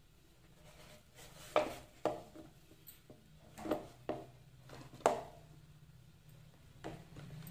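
A spatula scraping creamed butter down the sides of a mixing bowl, with about six short scrapes and soft knocks against the bowl; the hand mixer is not running.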